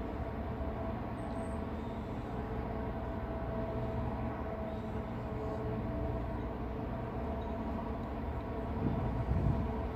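Steady low rumble of a cruise ship's engines and machinery, with a faint droning tone over it, swelling slightly near the end.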